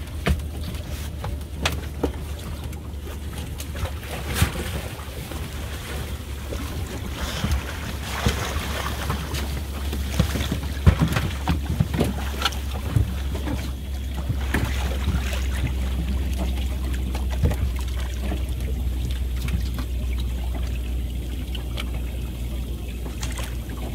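Water splashing and sloshing against a small boat's hull as a person lowers himself over the side and moves in the water, with scattered knocks and splashes. Wind rumbles on the microphone throughout.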